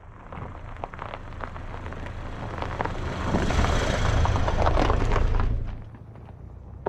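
A motor vehicle driving past, a low engine rumble with many small clicks over it, building to its loudest in the middle and dropping away about six seconds in.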